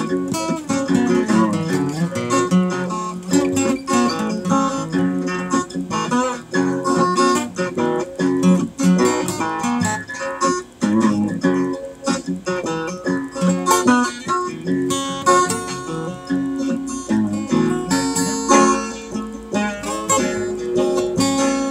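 Acoustic guitar played as an instrumental, a quick run of plucked notes and chords with no singing.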